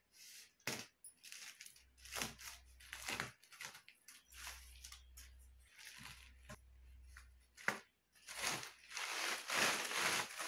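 Scissors snipping plastic packing straps on a bale wrapped in plastic sheeting, with irregular clicks and rustles of the wrapping. From about eight seconds in, the plastic sheet crinkles loudly and continuously as the bale is handled.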